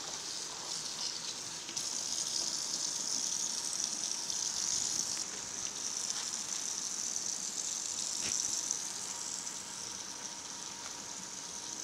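Kitchen faucet running, a steady hiss of water with a few small shifts in level.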